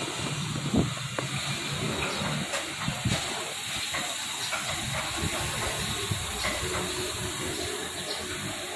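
Outdoor street ambience: a steady hiss with a low rumble of traffic underneath.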